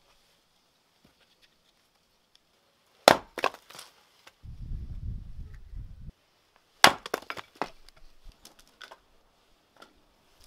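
Axe splitting firewood on a wooden chopping stump: two sharp strikes about four seconds apart, each followed by a few lighter knocks as the split pieces clatter down.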